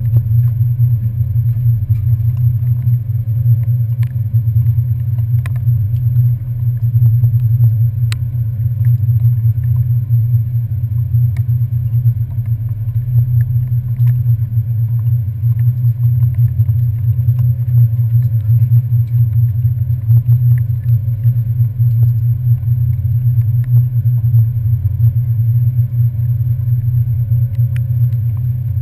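Low, steady rumble of a passenger ferry's engines, with a few faint ticks scattered through it.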